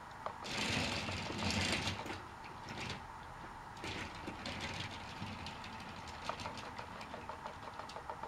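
Battery-powered Trackmaster toy train's motor whirring and its trucks rattling along plastic track, loudest from about half a second to three seconds and again briefly around four seconds, then a run of light clicks near the end.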